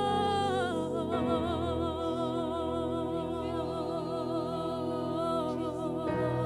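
Live praise-and-worship music: a singer holds long notes with vibrato over steady backing chords, the melody stepping down to a lower note about a second in.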